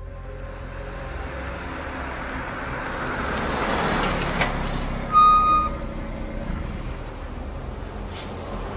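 A passenger bus approaching, its engine and road noise swelling as it nears, with a click, then a single short horn blast about five seconds in; the bus then runs steadily as it stands.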